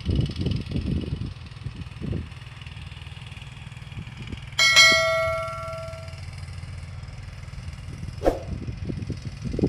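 A single bell-like metallic ding about halfway through, ringing out and fading over about a second and a half. Under it runs a steady low hum with wind buffeting the microphone in the first two seconds, and a short click comes near the end.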